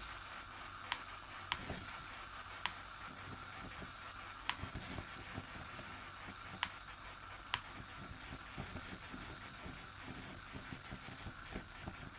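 Coleman 508A Sportster white-gas stove burning with a steady, quiet hiss as the burner warms up, its flame still unsettled. Six sharp clicks come at uneven intervals in the first eight seconds, with faint crackling later on.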